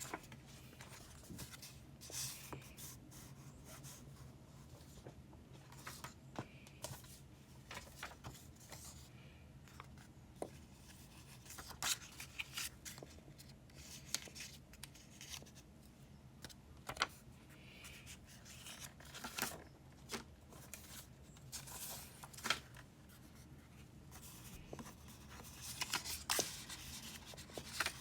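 Paper being handled for a collage: crisp rustling, scissor snips and tearing, with many short sharp clicks and taps scattered throughout over a low steady hum.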